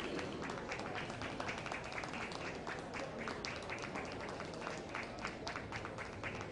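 Audience applauding: many irregular hand claps overlapping.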